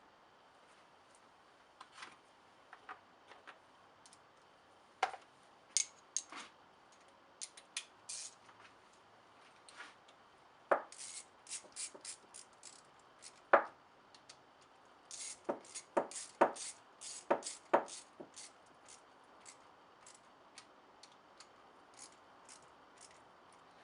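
Hand tools clicking and clinking on a steering box as its 7/16 bolts are fitted and tightened: scattered sharp metallic clicks, with quicker runs of clicks about halfway through and again a few seconds later.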